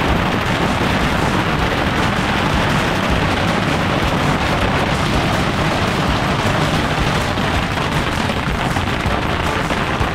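Massed bottle rockets of a Yanshui beehive fireworks barrage firing without a break: a dense, continuous rattle of pops and hiss.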